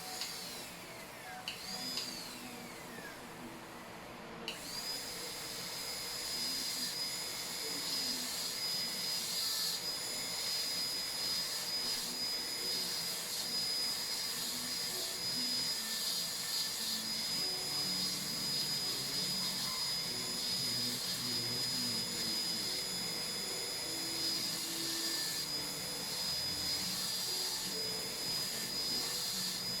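High-speed air-turbine dental handpiece cutting a cavity preparation in a molar: a couple of short runs that wind down in pitch near the start, then a steady high whine from about four and a half seconds in.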